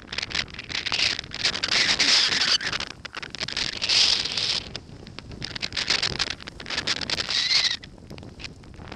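Wind rushing over a helmet-mounted camera's microphone while skis hiss through powder snow, the noise swelling and fading several times with crackly buffeting.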